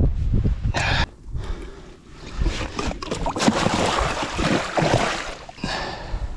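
A big musky thrashing in a landing net at the side of the boat, splashing water in irregular bursts through the middle of the stretch. Before that come knocks and a brief rattle of gear being handled in the boat.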